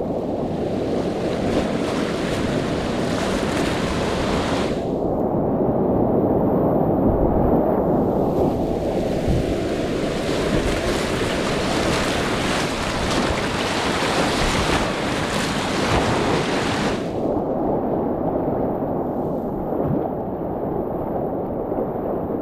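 Whitewater rapids of the Arkansas River rushing and splashing around a kayak, heard close up from the boat: a steady low rush, with brighter, hissing splash and spray for roughly the first five seconds and again from about eight to seventeen seconds in.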